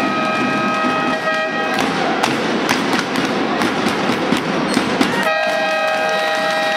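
Handball crowd cheering and clapping, with fans' air horns blowing long, steady blasts. The horns sound at the start, give way after about two seconds to cheering with sharp claps, and start up again about five seconds in.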